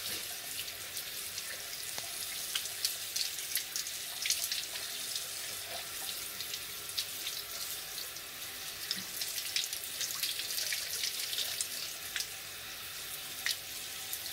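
Cold water running steadily from a sink faucet onto wet embroidered fabric as it is rubbed and squeezed in the stream, with many small splashes and drips.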